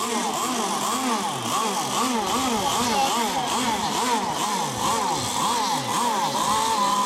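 Small two-stroke engine of a radio-controlled racing boat running at high speed, its pitch swooping up and down over and over, then settling to a steadier note near the end.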